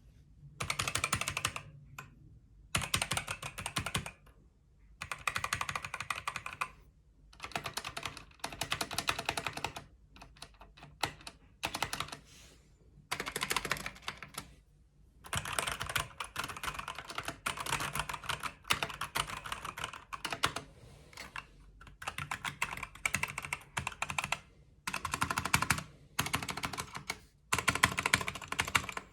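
Typing on a computer keyboard: rapid runs of keystrokes in bursts of a second or two, with short pauses between them.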